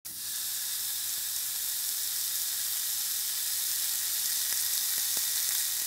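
Beef burger patty sizzling on a hot grill grate: a steady hiss with a few small pops near the end.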